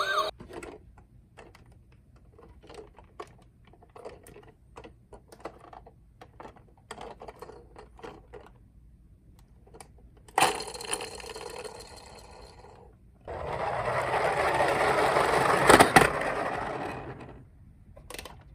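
Toy minicars being handled and rolled: scattered light clicks and taps, then about ten seconds in a short rattling roll, followed by a longer, louder rolling rattle of small wheels down a slope with a sharp knock near its end.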